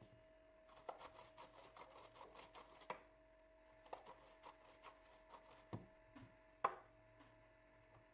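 Chilled dough being grated on a metal box grater: two runs of quick rasping strokes, about four a second, with a few sharp knocks, the loudest near the end.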